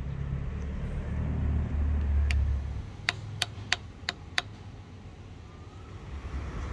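Low rumble of a passing road vehicle that swells and fades over the first three seconds, followed by a quick run of sharp clicks, about three a second.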